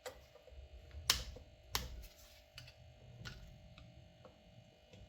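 Hand tool working loose the old flat screws that hold an Austin 7's rear brake drum: a handful of sharp metallic clicks, the loudest about a second in and again just under two seconds in, then lighter ticks.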